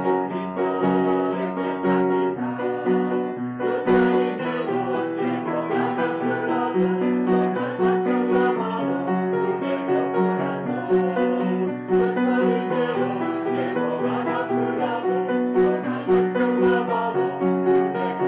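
A group of voices singing a children's action song over piano accompaniment.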